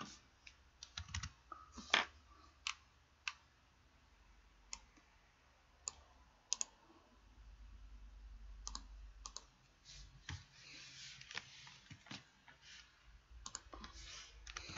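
Faint computer mouse and keyboard clicks, single clicks at irregular spacing, from editing a document on a PC.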